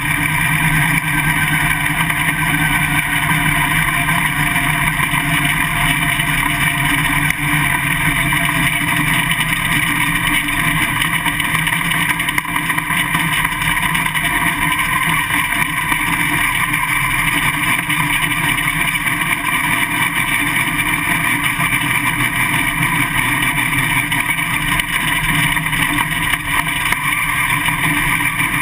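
Winged dirt late model race car's V8 engine running at a fairly steady pitch, heard from inside the car.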